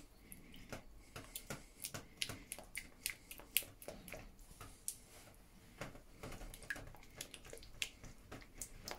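A silicone-headed utensil stirring thick condensed milk in a stainless steel bowl: faint, irregular light clicks and soft squishes, several a second.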